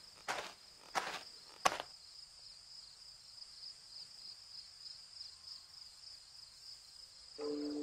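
Cartoon footstep sound effects: three soft steps about two-thirds of a second apart that stop about two seconds in, over a steady background of chirping crickets. Near the end a low, held two-note tone comes in.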